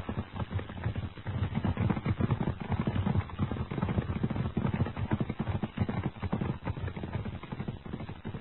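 Horse galloping, a rapid run of hoofbeats that grows louder over the first couple of seconds and fades away near the end.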